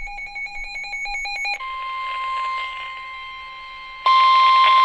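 Emergency Alert System broadcast: a rapidly pulsing digital data burst (the SAME header), then, about a second and a half in, the steady one-pitch NOAA Weather Radio 1050 Hz warning alarm tone, which turns much louder about four seconds in.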